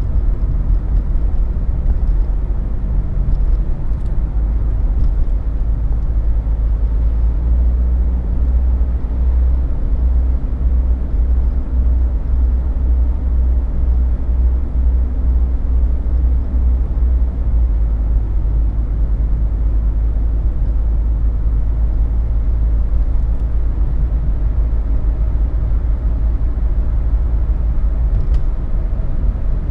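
Mercedes-Benz 190D 2.5 Turbo's OM602 five-cylinder turbodiesel running under way as the car drives, heard from inside the cabin with low road rumble. It gets somewhat louder for a stretch in the middle.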